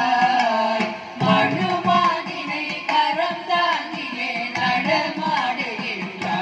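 Voices singing a Carnatic devotional song together, accompanied by steady mridangam drum strokes.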